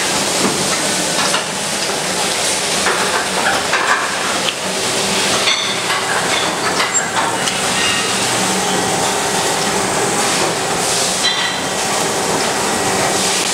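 Two-colour injection molding machine running on a factory floor: a steady hiss with a faint hum and a few light knocks.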